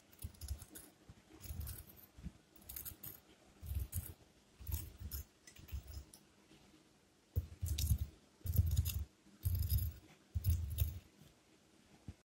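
Crispy deep-fried chicken coating crackling and crunching as a fork presses and breaks into it, in a run of short crunches, each with a dull low thump. The crunches come closer together and louder in the second half.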